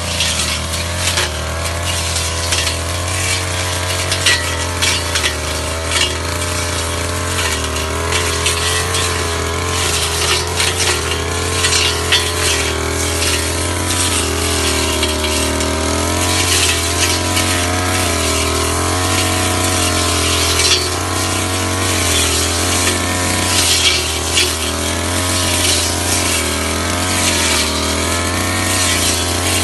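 Ogawa two-stroke petrol brush cutter running at working speed through thick grass and weeds. Its engine pitch wavers up and down as the cutting head loads and frees, with frequent ticks and snaps of stems being struck.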